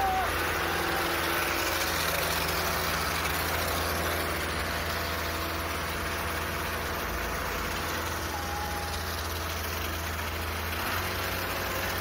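Concrete mixer truck's engine running steadily while its drum turns to discharge concrete down the chute.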